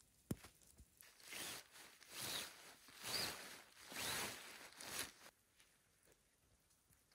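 Tent fabric swishing and rustling in about five separate strokes as it is pulled and spread out, after a single sharp click just before.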